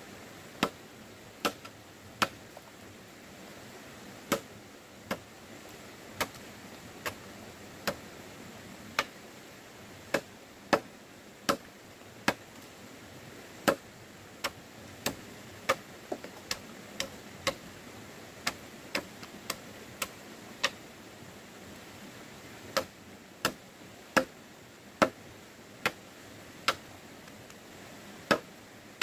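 Machete blade chopping into a wooden pole: a steady run of sharp chops, about one to two a second, with a short pause about two-thirds of the way through.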